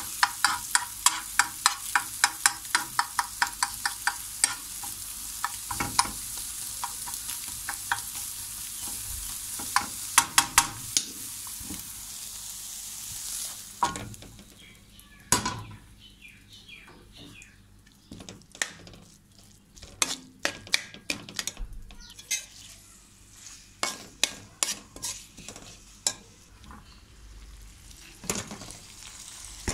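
Egg frying in hot oil: steady sizzling, with a spatula tapping and scraping the pan three or four times a second. About halfway through the sizzle drops away, and a metal spoon scrapes and knocks irregularly against a steel wok as vegetables and egg are stirred.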